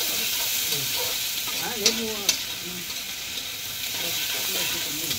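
Steady sizzling hiss of food cooking, with two sharp pops close together about two seconds in.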